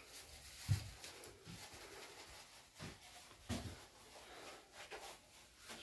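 Mostly quiet, with a few soft low thumps: one about a second in and others around three seconds in.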